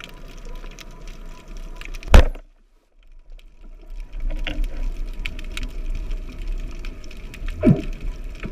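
Band-powered speargun fired underwater: one sharp, very loud crack about two seconds in, after which the sound cuts out for about a second. Around it is a steady underwater crackle and hiss, with a short rising whoop near the end.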